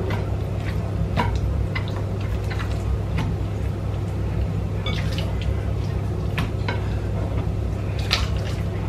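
Soft wet squelches and light taps of marinated raw chicken pieces being handled and pressed into a ceramic baking dish among chopped vegetables, scattered irregularly over a steady low hum.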